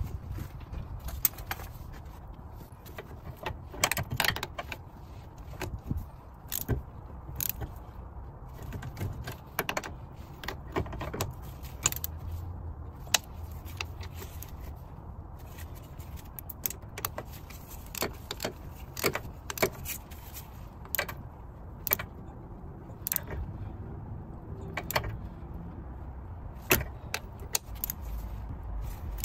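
Ratchet and socket working the wheel-bearing bolts on a Volvo S60's front steering knuckle: irregular metal clicks and clinks, sometimes in quick clusters, over a low rumble.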